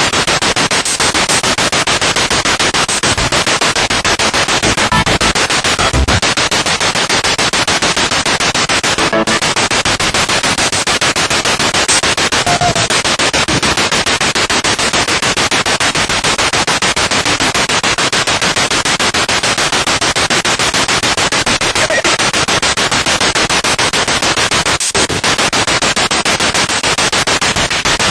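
Spirit box radio scanning rapidly through stations: loud, continuous choppy static, with only brief faint snatches of broadcast sound.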